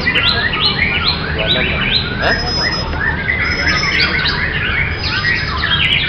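Several caged songbirds singing at once in a dense chorus of quick, repeated rising whistles, the birds of a murai batu (white-rumped shama) contest class. Over a steady low background hum.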